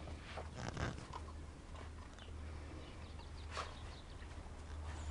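Thai Ridgeback puppies jumping and scrabbling about on dry dirt: scattered short scuffs and scratches of paws, under a steady low rumble on the microphone.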